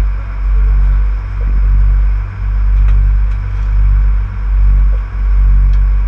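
Sport-fishing boat's engines running under way: a loud low rumble that swells and dips about once a second.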